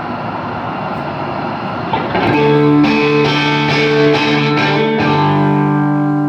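Steady noise for about two seconds, then a distorted electric guitar comes in, strumming held chords that ring on through the amplifier.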